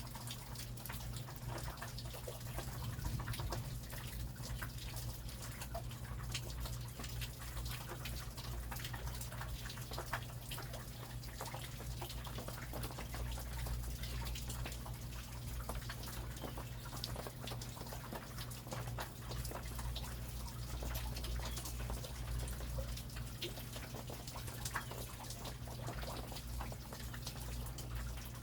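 Rain falling steadily, with many separate drops ticking close by over a constant low rumble.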